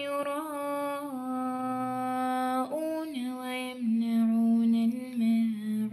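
A woman's solo voice chanting Quranic recitation, drawing out long held notes that bend slowly between pitches, with a brief break for breath partway through.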